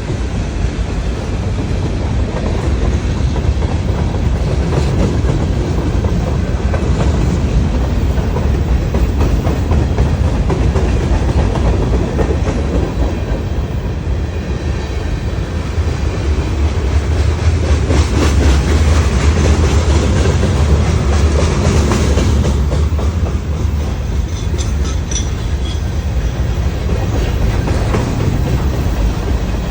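A train rolling past, a steady loud rumble with wheels clicking over the rail joints.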